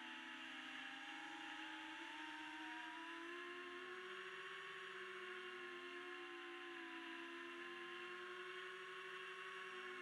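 FPV quadcopter's electric motors and propellers whirring, the pitch of their whine sinking and rising again with the throttle, with a clear dip about four seconds in.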